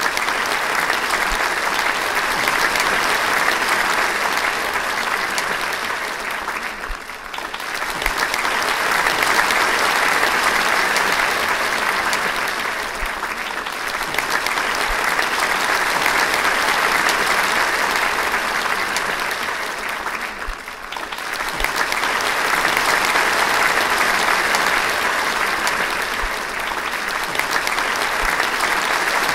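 Audience applauding, a dense steady clapping that dips briefly four times and picks up again.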